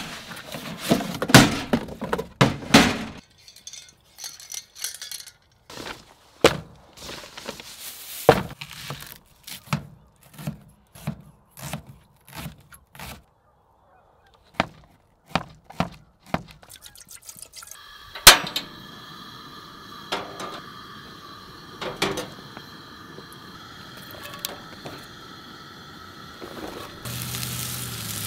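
A cardboard box being handled and a camp stove unpacked, with rustling and knocks, then scattered knocks and clicks of food being cut and set out. About 18 seconds in a sharp click is followed by the steady hiss of the camp stove burner, and near the end onions and mushrooms start sizzling in a frying pan.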